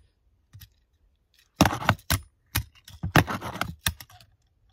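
Tech Deck fingerboard being ridden on a cardboard box: a quiet start, then several sharp clacks as the board hits the surface, followed by a short stretch of scraping and one more clack.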